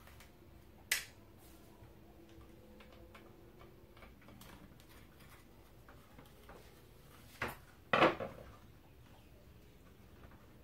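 Phillips screwdriver and the plastic housing of a water purifier being handled while a fan screw is undone: a sharp click about a second in, then two louder knocks close together near the end, with quiet in between.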